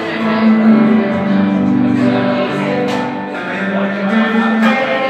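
Live guitar music, a plucked and strummed song accompaniment with sustained pitched notes and no words.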